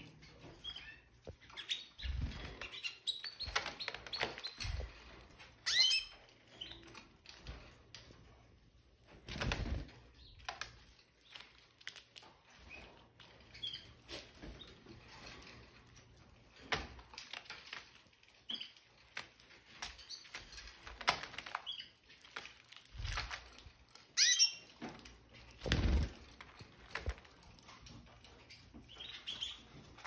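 Red factor canaries fluttering their wings as they hop and fly about the cage, with scattered light taps from the birds at the seed dishes and a few short high chirps.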